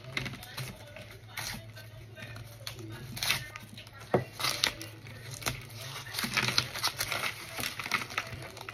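Baked cornstarch chunks crunching and crumbling in irregular crisp snaps, busier and louder in the second half, over a low steady hum.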